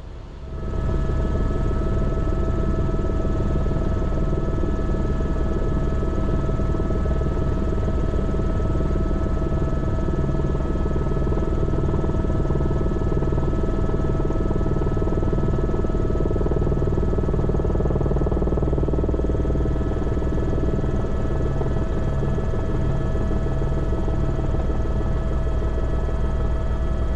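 Airbus H125 helicopter running steadily: the whine of its Arriel turboshaft, with several constant high tones, over a pulsing low beat from the main rotor. It comes in about half a second in and stays level throughout.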